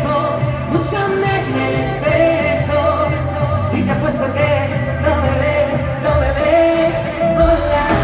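Live pop band playing through the stage PA, drums, bass and electric guitar, while a female singer holds long, wavering sung notes over it.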